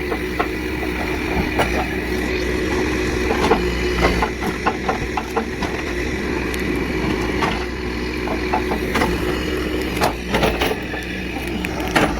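Engine of a machine running steadily while the wall of an old wooden cabin is knocked down, with scattered sharp cracks and knocks of breaking wood and debris.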